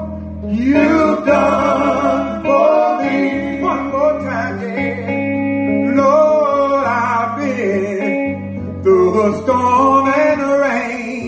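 Male gospel vocal group singing live with guitar and band accompaniment, the voices sliding up and down in drawn-out runs.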